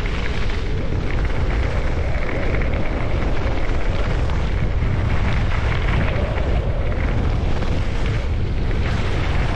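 Wind buffeting a camera microphone on a fast downhill ski run: a loud, steady, deep rumble that does not let up.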